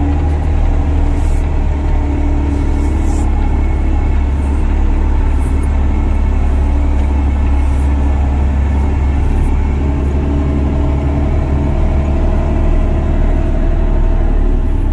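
Diesel engine of an off-road haul truck running steadily while driving, heard from inside the cab as a loud, steady low drone.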